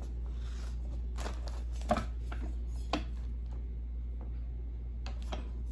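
A few soft knocks and clicks from working a corn-tortilla press by hand, the two loudest about two and three seconds in, over a steady low hum.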